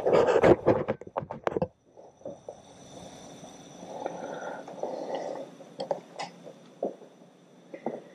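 Close, irregular rustling and scraping for about the first second and a half, then quieter hand-tool work with a few light metal clicks as small bolts are started by screwdriver into an outboard motor's stator.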